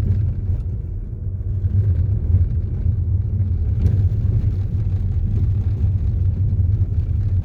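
A 2012 Audi A5 2.0 TDI driving over a rough road: a steady low rumble of tyres and road, with no suspension knocking now that the stabilizer links and bushings are new.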